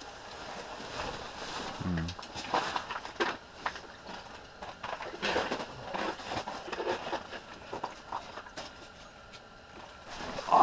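Irregular scrapes, clicks and rustling of clothing and fishing gear as an angler moves about inside an ice fishing shelter, with a short low grunt-like sound about two seconds in.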